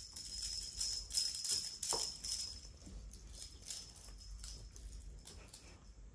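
A cat eating from a ceramic bowl: small irregular clinks and rattles of food against the bowl, busiest in the first two or three seconds, then lighter.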